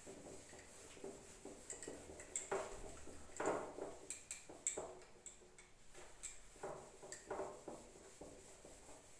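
Whiteboard duster wiping the board clean: a series of faint, irregular scrubbing strokes with light knocks.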